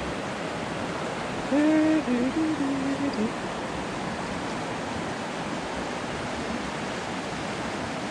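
Steady rush of flowing water. A person's voice rises briefly over it about a second and a half in, for under two seconds.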